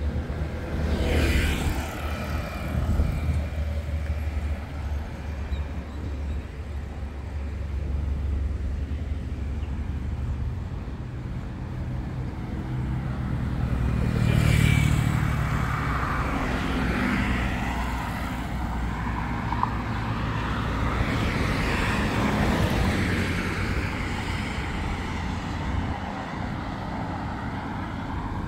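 Road traffic: vehicles passing on a wide road over a steady low rumble, one pass about a second in and a louder one about halfway through.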